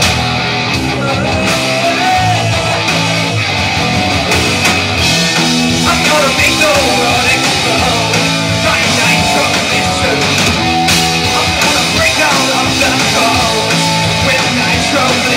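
Live rock band playing a loud instrumental passage: distorted electric guitars over bass and drums, with a wavering lead guitar line.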